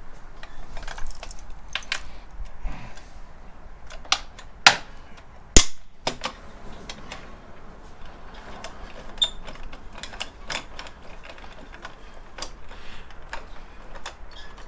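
Hand tools clicking and clanking against metal while the motorcycle's subframe bolts are being worked loose, with two sharp metallic knocks close together about five seconds in.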